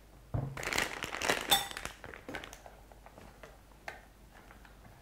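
Plastic piping bag crinkling and a silicone spatula scraping and knocking against a ceramic bowl as buttercream is spooned into the bag, busiest in the first two seconds with a brief ring off the bowl, then only a few faint clicks.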